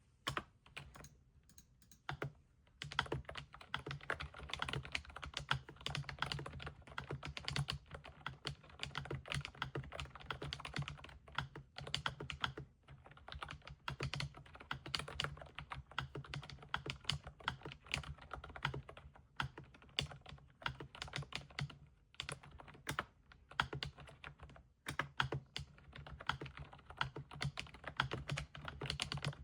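Typing on an Aula S99 mechanical keyboard: a few single key presses, then fast continuous typing from about three seconds in, with short pauses.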